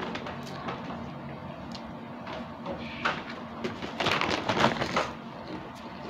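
Foil snack bag of chicharon crinkling and rustling as a hand digs into it, in irregular crackles with a dense burst about four seconds in.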